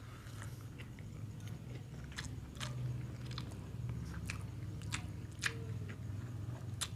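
A person chewing a mouthful of instant fried noodles close to the microphone, with scattered short wet clicks and smacks of the mouth over a low steady hum.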